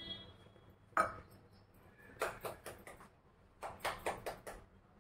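Dishes and utensils handled: a single sharp knock about a second in, then two short runs of quick clinks and scrapes.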